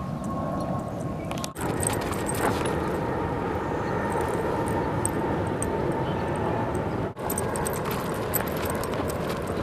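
Light metallic jingling and clicking, typical of dog collar tags, over a steady background of outdoor noise; the sound breaks off briefly twice, about a second and a half in and about seven seconds in.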